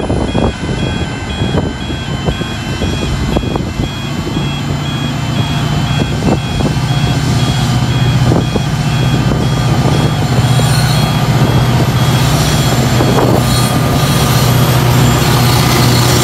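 Level crossing warning bells ringing in a steady on-off pattern as a diesel-hauled freight train approaches. The locomotives' engine drone sets in about four seconds in and grows steadily louder until it is the loudest sound.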